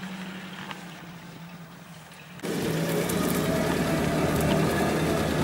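UAZ off-roader's engine running, at first faint and steady, then suddenly much louder and closer about two and a half seconds in as the vehicle moves across rough ground.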